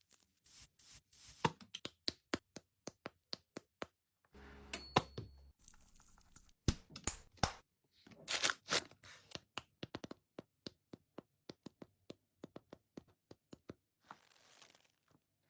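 Close handling of product packaging: a run of sharp taps and clicks, often a few a second, with short spells of tearing and crinkling.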